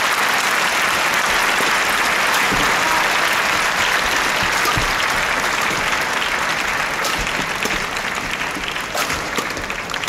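Arena crowd applauding after a badminton rally: a dense, even clapping that holds steady, then slowly dies down over the last few seconds.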